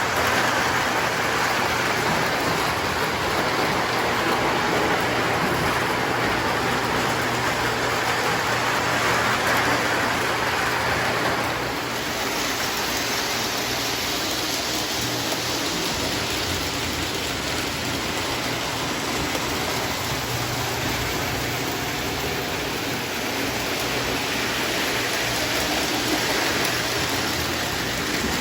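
Lionel toy train running on its track: a steady whirring rumble of motor and wheels, which shifts in tone about twelve seconds in.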